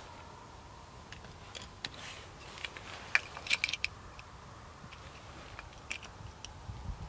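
Scattered light clicks and taps from hands handling small fire extinguishers and setting them on the ground, with a quick run of clicks a little past the middle.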